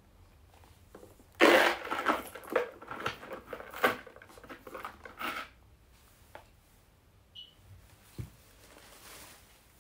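Handling noise as a small quilted leather bag with a metal chain strap is set on its cardboard box: about four seconds of rustling with clicks and knocks, then a few faint taps.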